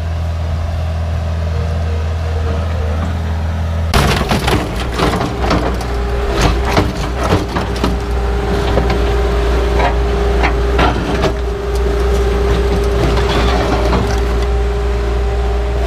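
Bobcat skid-steer loader engine running steadily. About four seconds in, it gives way to a run of irregular clanking and crunching knocks as the refrigerator is smashed, over the continuing engine drone, with a steady hum joining soon after.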